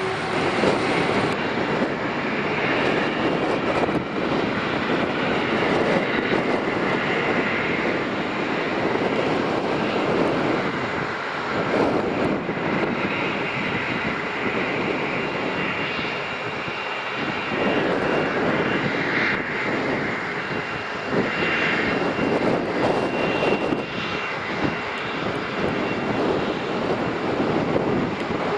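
Twin Pratt & Whitney PW545 turbofan engines of a Cessna Citation 560XLS business jet running as it rolls and taxis. A steady, rushing jet noise rises and falls, with a thin high whine coming in over the second half.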